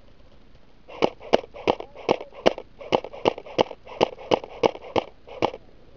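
Airsoft gun firing semi-automatic, about thirteen quick shots at roughly three a second, starting about a second in, each a short sharp snap.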